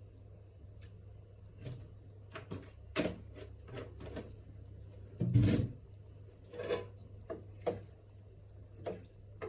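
Spoon knocking and scraping against a large pot while rice is stirred after oil has been added, in a series of separate clicks and clatters with one heavier thump about five seconds in.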